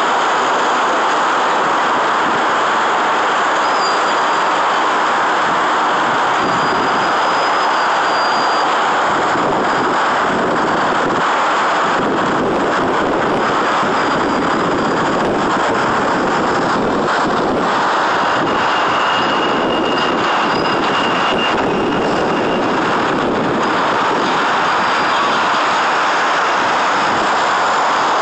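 Steady roar of city traffic mixed with the running of demolition excavators, heard from high above, with a few faint high squeals now and then.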